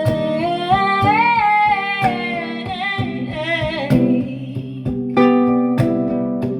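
A woman singing one long held note with vibrato, the word "break", over strummed guitar. The voice stops about four seconds in and the guitar strums on alone.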